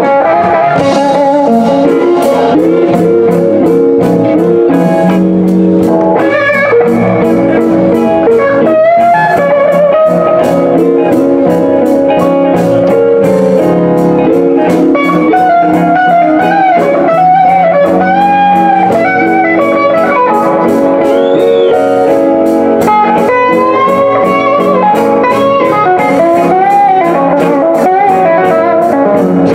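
Live blues band playing an instrumental passage: an electric guitar leads with bent, gliding notes over rhythm guitars and a drum kit with a steady cymbal beat.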